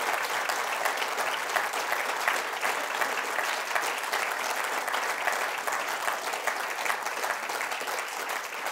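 An audience applauding, dense hand-clapping at a steady level.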